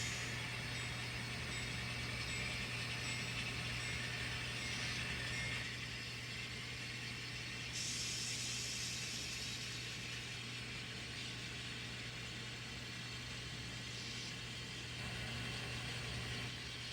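N scale model diesel locomotive pulling a train on the layout: a steady low hum with a faint hiss of the small motor and wheels on the rails.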